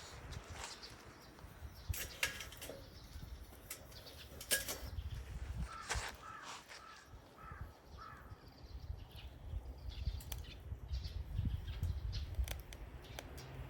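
Wood fire in a Solo Stove Titan stainless-steel fire pit, crackling with scattered sharp pops over a low rumble. A crow caws a few times in quick succession about halfway through.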